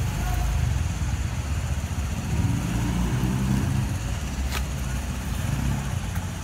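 Street traffic: the steady low rumble of motor vehicle engines, with a short click about four and a half seconds in.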